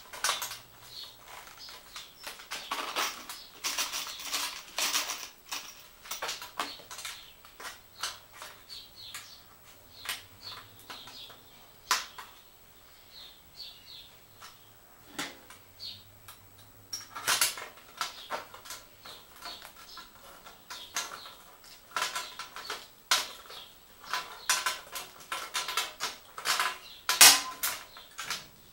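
Empty steel food cans being worked with a hand tool: irregular metallic clicks, scrapes and clinks of tinplate, some sharp and loud, with short pauses between bouts.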